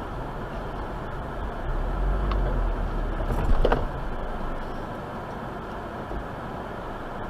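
Steady car noise heard from inside a car, mostly low engine and road rumble, which swells for a couple of seconds. A single short knock sounds about three and a half seconds in.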